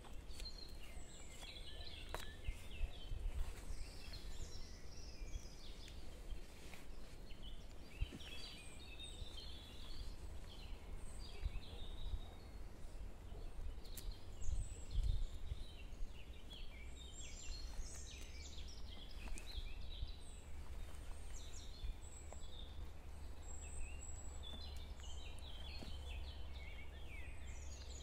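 Wild birds chirping and singing in many short, high calls, scattered all through, over a steady low rumble.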